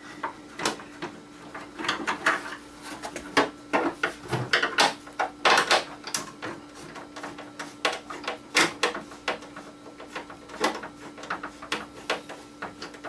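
Irregular clicks, taps and knocks of hands working at the plastic housing of an exercise-machine control console as it is taken apart, over a steady hum.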